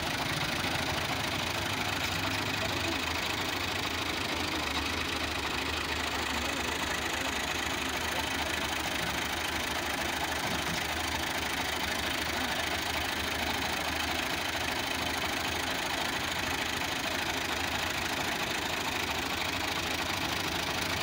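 Fiat 480 tractor's three-cylinder diesel engine running steadily, with no revving.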